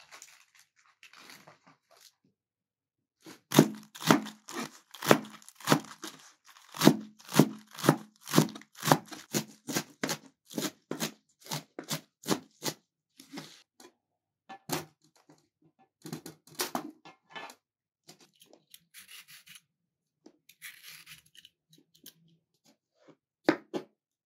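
Kitchen knife chopping lettuce on a plastic cutting board: a quick, even run of crisp chops about three a second, then slower, scattered cuts with softer noises between. Near the end come a few knife cuts through a peeled cucumber.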